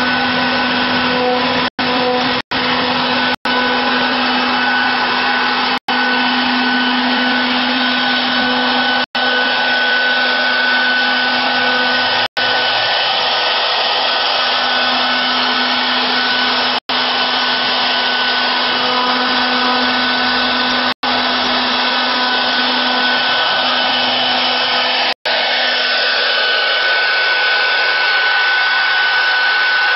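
A 2040 CNC router's spindle running at high speed while its bit carves into a wooden block: a steady whine over a continuous rushing noise, broken by several split-second gaps.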